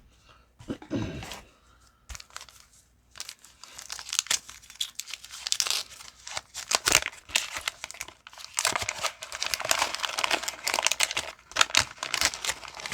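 Wax-paper wrapper of a 1989 Fleer baseball card pack being torn open and crinkled. The dense crackling starts about three seconds in and keeps on.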